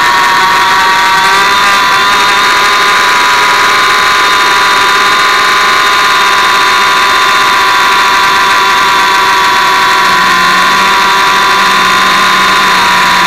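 Hubsan X4 micro quadcopter's four small motors and propellers whining steadily in flight, heard loud and close from the camera carried on the drone. The pitch holds nearly level, and a lower hum joins about ten seconds in.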